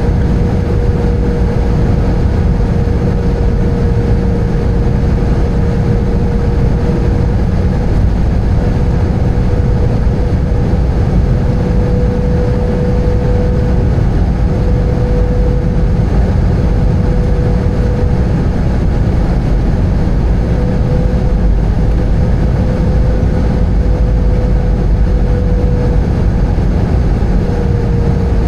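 Airbus A320 cabin noise heard from a window seat: a steady, loud rumble of the engines and airflow with a constant hum running through it.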